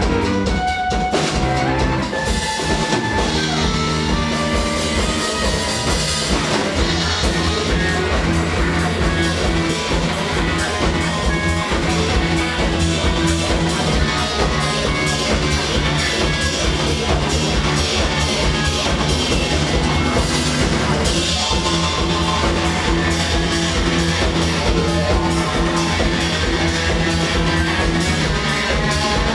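Rock band playing an instrumental passage: drum kit and guitar with sustained notes over a steady beat, no singing.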